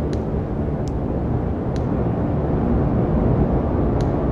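Data sonification of hydrogen-bond dynamics in a protein-folding simulation: a dense, steady low noise with four brief high ticks at irregular spacing.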